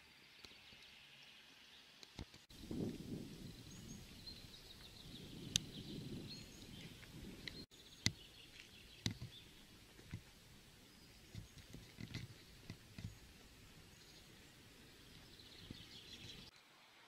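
Small birds chirping and singing in the trees, with a low rumble for a few seconds near the start and a handful of sharp clicks scattered through.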